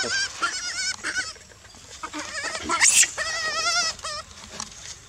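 Baby long-tailed macaque crying in distress: a string of high, quavering cries, with a sharp shriek about three seconds in followed by a long wavering wail.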